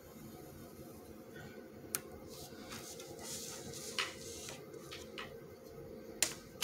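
A clear plastic ruler being handled, slid across paper and set down on a wooden desk: several sharp plastic clicks, with a brushing scrape in the middle. A steady low hum runs underneath.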